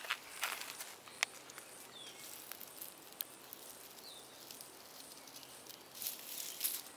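Dry leaf litter and pine needles rustling and crackling close by, in short scattered bursts with a few sharp clicks and a denser flurry near the end. Two faint short chirps sound in the middle.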